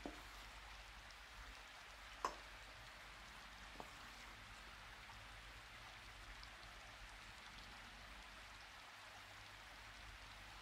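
Faint steady hiss with three light clicks, the sharpest about two seconds in.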